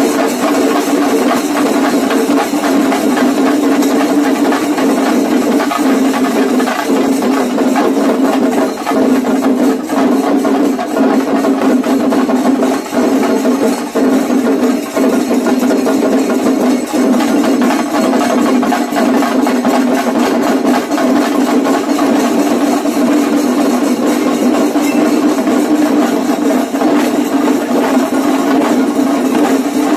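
A percussion troupe drumming together, loud and unbroken, with a fast, dense run of strokes and only brief dips.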